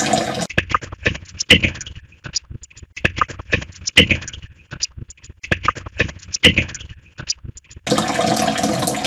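Steady hiss of running tap water, cut about half a second in by a playback of the same tap noise put through AI noise-suppression software (KRISP): choppy, clipped fragments with clicks and brief voice-like snatches between short gaps, which the uploader reads as spirit speech. The plain running-water hiss comes back about a second before the end.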